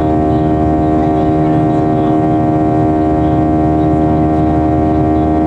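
Boeing 737-800's CFM56-7B turbofan engines running steadily, heard inside the cabin from a seat over the wing. The sound is a constant drone with a strong multi-toned whine.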